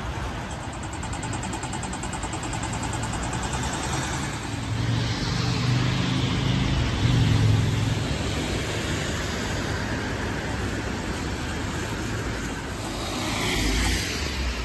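Road traffic on wet streets: cars passing with their tyres hissing on the wet road, one passing louder about seven seconds in.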